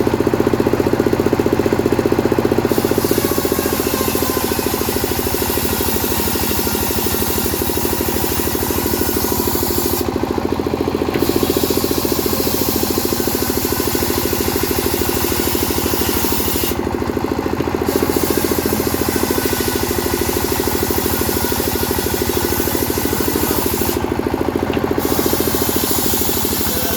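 Chainsaw engine running steadily while sawing wood, with a harsh high hiss that drops out briefly three times.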